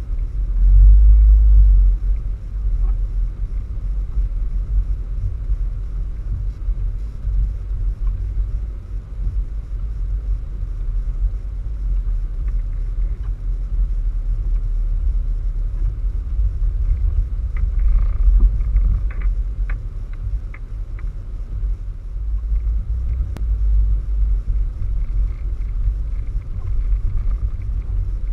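Wind buffeting the microphone in a snowstorm: a low, unsteady rumble, with a few faint ticks about two-thirds of the way through.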